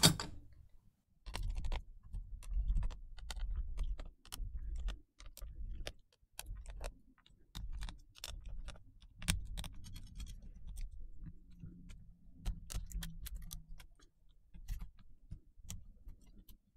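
Precision screwdriver taking out the small screws of a MacBook Air logic board: scattered light metallic clicks and ticks at an uneven pace, over low handling thumps.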